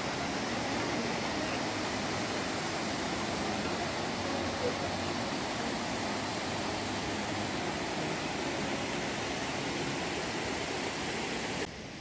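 Mountain stream rushing over boulders in white-water cascades, a steady, even rush of water. It cuts off suddenly near the end, leaving a quieter background.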